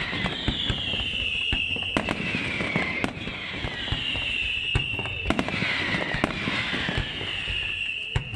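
Fireworks display: a rapid run of sharp bangs and pops, overlaid by whistling tones that repeatedly fall in pitch, about one a second.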